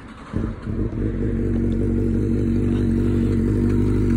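Sport motorcycle engine idling steadily. It comes in suddenly about a third of a second in, then holds an even idle.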